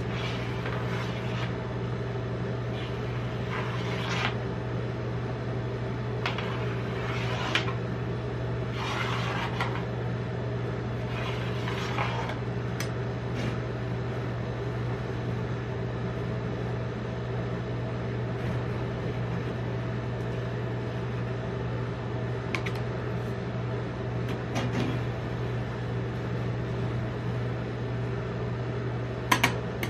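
Steady hum of a rolled-ice-cream cold plate's refrigeration unit, with a steel spatula scraping and cutting through the frozen ice cream on the plate in about five short strokes over the first dozen seconds. A sharp double tap of metal on the plate comes near the end.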